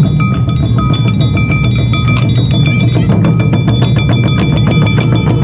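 Awa Odori festival band playing a fast, driving beat: large taiko barrel drums thudding under the sharp metallic strikes of a kane hand gong, with high ringing notes held over the rhythm.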